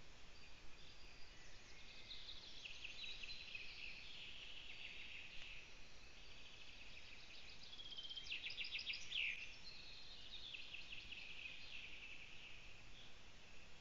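Small songbirds singing in the surrounding forest, faint, over steady hiss. Rapid high trills overlap throughout, with a louder trilled phrase about eight seconds in that ends on a falling note.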